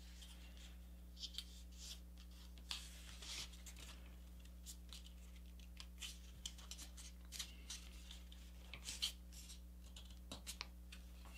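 Faint, scattered crinkles and rustles of a folded sheet of printer paper being handled, as fingers force a folded pocket open and press the paper into a crease.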